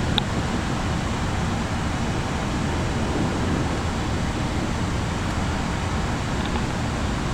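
Steady rushing airflow noise on the flight deck of an Airbus A340-300 on final approach with flaps full, with a brief high click just after the start.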